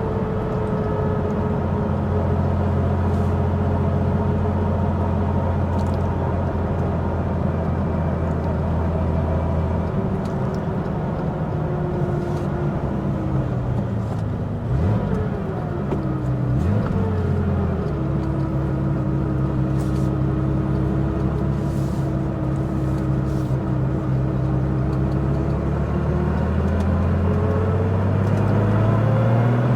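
Air-cooled flat-six of a 1980 Porsche 911 SC Weissach, bored out to 3.2 litres, running under way at steady revs. The revs sag through the middle, with a brief quick up-and-down near halfway, hold lower for a while, then climb steadily near the end as the car accelerates.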